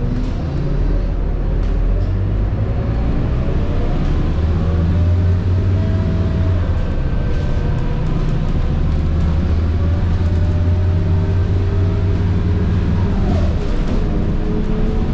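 Scania K230UB bus's 9.3-litre DC9 engine and ZF Ecomat 6HP504C six-speed automatic gearbox heard inside the cabin under way, with a high-pitched transmission whine over the engine hum. The whine rises steadily in pitch as the bus gathers speed, drops sharply near the end as the gearbox changes gear, then starts to climb again.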